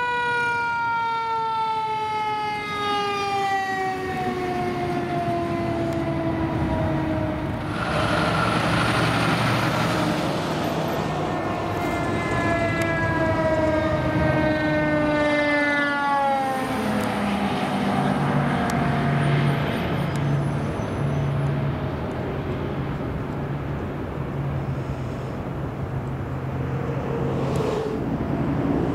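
Fire truck siren winding up and then slowly dying away in a long falling wail, followed by two more falling wails near the middle, over the running diesel engines of passing fire apparatus.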